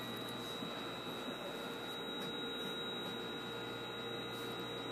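Steady electrical hum with a thin high whine inside the cab of a JR 811 series electric train, with no clear knocks or rail clatter.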